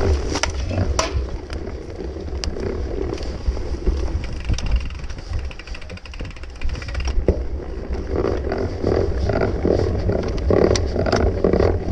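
Wind buffeting the microphone of an action camera carried on a mountain bike, with rattles and sharp clicks from the bike jolting over rough grass. The sound grows busier in the last few seconds.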